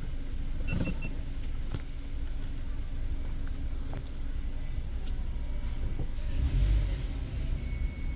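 Car rolling slowly through an underground parking garage, with a steady low engine and tyre rumble heard from inside the cabin. A short high beep sounds about a second in, and the rumble swells briefly near the end.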